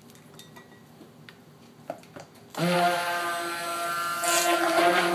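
Handheld stick blender switched on about two and a half seconds in and running steadily in the soap batter, a motor whine with several tones, mixing the oils and freshly added lye water. Before it starts there are only a few light clicks.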